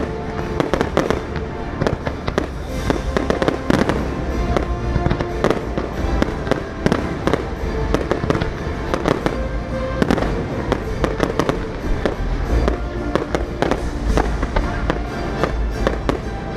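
Fireworks display going off in rapid succession: dense bangs and crackles over a steady low rumble, with music holding long notes underneath.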